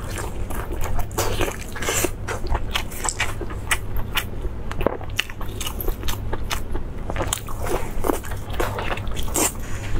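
Biting into and chewing a lamb sausage close to a clip-on microphone: a steady stream of sharp clicks, crunches and wet mouth smacks.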